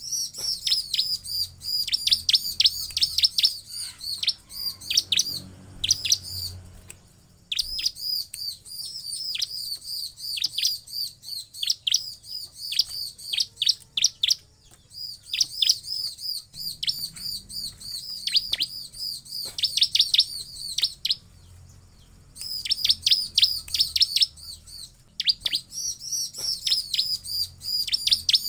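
Bar-winged prinia (ciblek) singing: long runs of rapid, high, sharp chirps, broken by brief pauses about a quarter of the way in, halfway, and about three quarters through.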